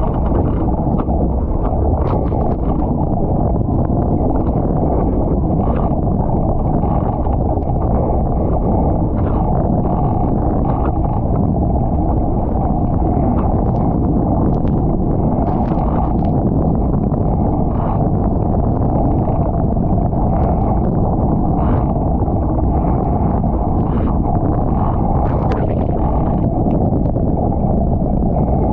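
International 14 skiff planing at speed: a steady, low rush of wind on the microphone and water streaming past the hull, with irregular sharp splashes as spray strikes the boat and camera.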